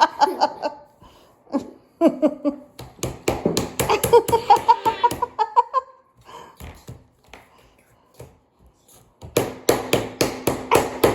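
A child laughing in repeated bursts, with sharp smacks in among it. The laughter dies down about halfway through and starts again near the end.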